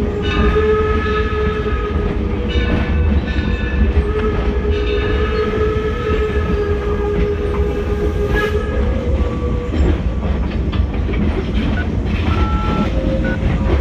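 Torch Lake steam locomotive's whistle blowing several blasts: two shorter ones, then one lasting about five seconds. The steady low rumble of the moving train runs underneath.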